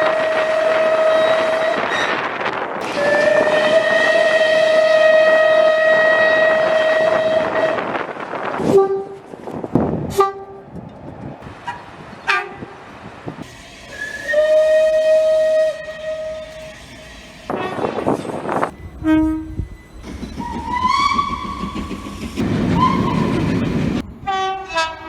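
Horns of several British trains sounding one after another over the noise of the trains: two long steady blasts, then short toots, another blast, a few notes that slide up in pitch, and a quick run of short toots near the end.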